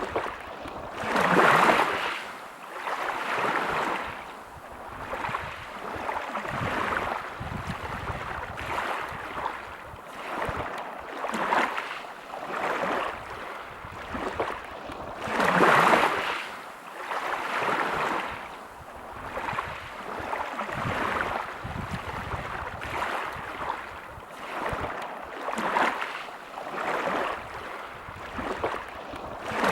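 Sea waves breaking on a pebble beach, each wash swelling and falling back every few seconds, with the biggest surges about one and a half seconds in and again about halfway through.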